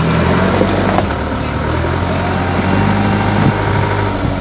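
Diesel engine of a loader running under load as its bucket digs into the packed grass silage of a clamp face, the engine note shifting about a second in and again near the end, with a few knocks from the bucket.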